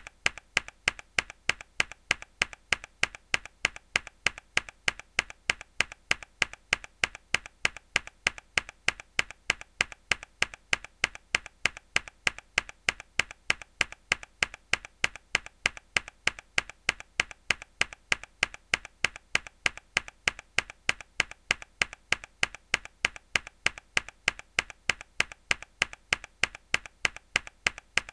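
A mechanical keyboard key pressed hard over and over, a sharp click with a quieter click after it, repeated evenly a few times a second.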